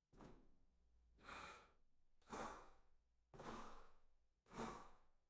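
Faint kayak paddle strokes in water: a soft swishing splash about once a second, five times.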